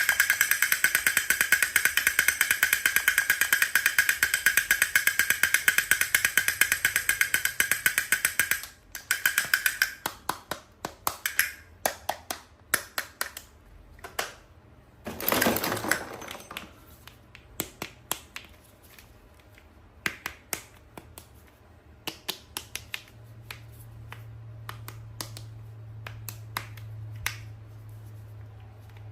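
Hands handling plastic toys and packaging: a fast run of clicks lasting about nine seconds, then scattered taps and clicks, with a short rustle about halfway through.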